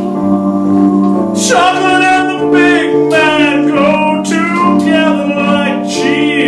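A singer's voice in an improvised song, over instrumental accompaniment holding steady chords; the voice drops out briefly and comes back in about a second and a half in.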